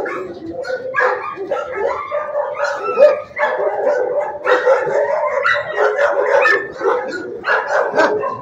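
Many kennelled shelter dogs barking at once: a continuous, overlapping chorus of barks and yelps with no pause.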